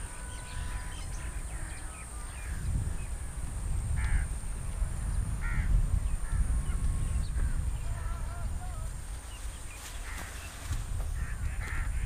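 Birds calling in the open: scattered short calls, two louder calls about four and five and a half seconds in, and a run of chirps later on, over a steady low rumbling noise.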